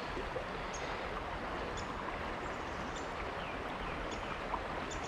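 Shallow river water rushing steadily over a rocky riffle, with faint, short, high bird chirps now and then.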